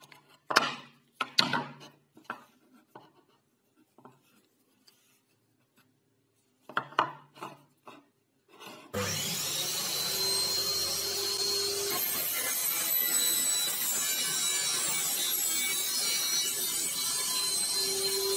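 A few short knocks and scrapes as the wooden jig and its clamp are handled. About nine seconds in, a table saw sets in abruptly and runs steadily, its blade being raised up through a wooden block clamped to the fence.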